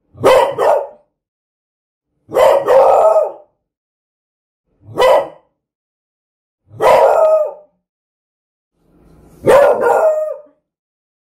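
A beagle baying: five drawn-out, pitched barks about two seconds apart.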